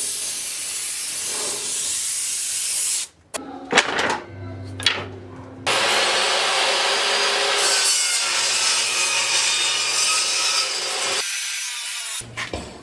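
Wood being sawn in two long stretches, broken by a few sharp knocks and clicks around four seconds in. The sawing stops about two seconds before the end, followed by a couple of clicks.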